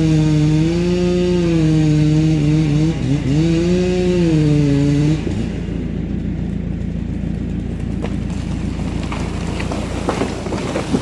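Chainsaw running at high revs, its pitch wavering and dipping as it works, then cutting off about five seconds in. A lower steady engine rumble with scattered knocks follows.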